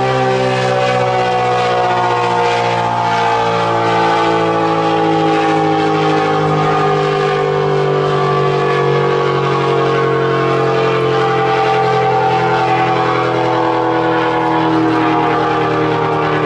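ACA Penetrator 50 (P-50) rotating dual-tone outdoor warning siren sounding its steady alert signal, a sustained chord whose pitch sags slowly lower, with wind on the microphone.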